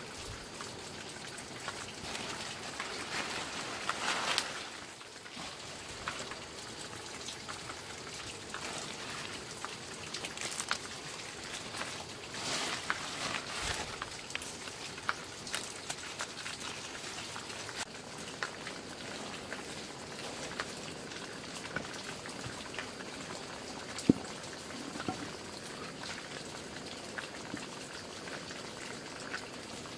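Steady patter like light rain, with scattered small ticks throughout and one sharp click about 24 seconds in.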